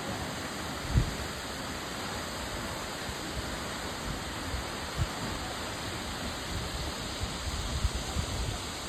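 Waterfall rushing in a steady roar of falling water, with a few short low thumps on the microphone about a second in, around five seconds in, and several near the end.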